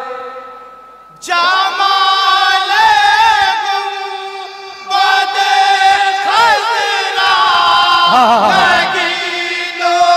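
A group of men singing a naat together in unison, with long wavering held notes. A fading note gives way to a loud entry about a second in; the voices dip around four and a half seconds and come back strongly at five.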